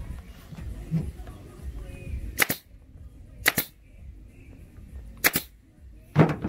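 Pneumatic upholstery staple gun firing four times, sharp cracks a second or two apart, driving staples through the vinyl seat cover into the seat base.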